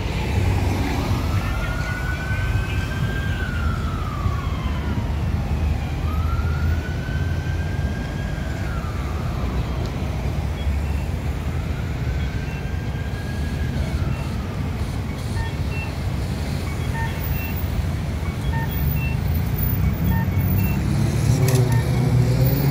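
Emergency vehicle siren in a slow wail, rising, holding and falling about every five seconds and fading away after about fourteen seconds, over steady road traffic. Near the end a vehicle passes close and the traffic rumble grows louder.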